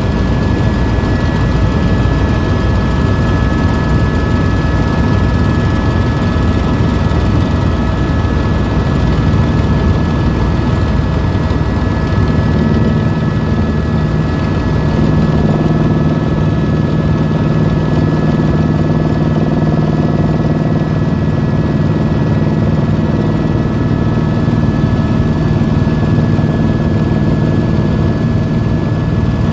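Tour helicopter in flight, heard aboard: a steady, loud drone of turbine engine and rotor with a constant high whine. About halfway through, a deeper hum grows stronger.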